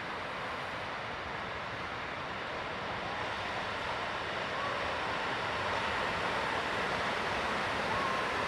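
Steady roar of breaking surf, growing slightly louder toward the end.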